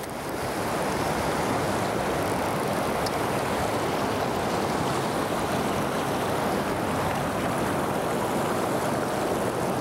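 River rapids rushing steadily, a constant even wash of white water.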